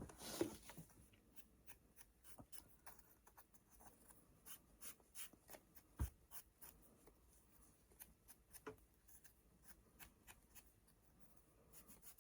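Faint dabbing and rubbing of a Distress ink pad over stamped craft pieces: a run of soft scratchy strokes and light taps, with one slightly louder knock about six seconds in.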